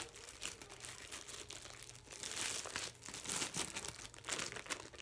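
Plastic bag crinkling and rustling in irregular crackles as slime is handled and put back into it.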